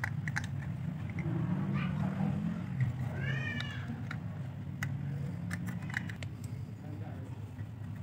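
Light plastic clicks and taps from a cracked phone-charger casing being handled and pried open. A cat meows once about three seconds in, its pitch rising then falling.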